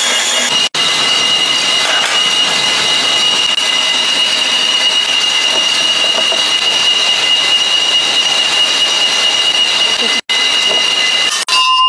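A power tool running steadily with a high-pitched whine over a loud hiss, cut off briefly twice.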